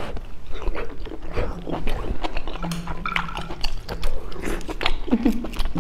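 Close-miked chewing and mouth smacks of someone eating cooked sea snail (conch) meat, with scattered sharp clicks as the shells are handled.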